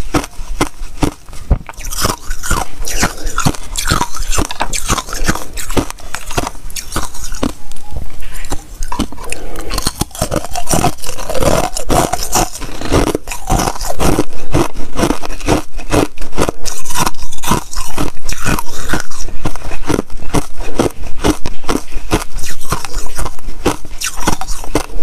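Close-miked chewing of thin ice: a dense, continuous run of sharp crunches and crackles, a little louder from about halfway through.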